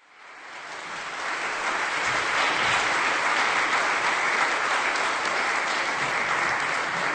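Audience applauding steadily, fading in from silence over the first second or two.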